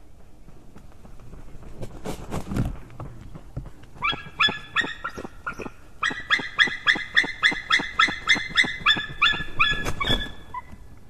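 White-tailed eagle calling: a fast run of sharp, high, repeated notes, about four a second, lasting some six seconds. It follows a brief rush of wingbeats as the bird lands, and near the end another whoosh of wings comes as the mate flies in.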